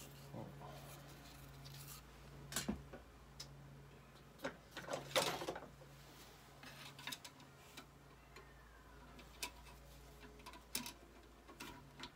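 Metal hand tools and engine parts handled on a workbench: scattered clinks and knocks, the loudest a short rattle about five seconds in. A low hum sits underneath and drops out now and then.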